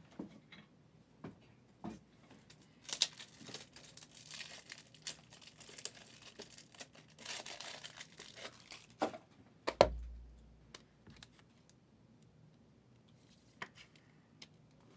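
Trading card pack wrappers being torn open and crinkled, in two bursts of tearing with scattered small clicks between them, and a single thump about ten seconds in.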